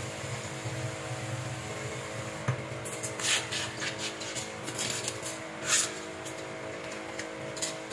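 Kitchen tap water running into a clear plastic bag at a stainless steel sink. The wet bag is then swished and shaken out, with short splashy, crinkly bursts about three and six seconds in.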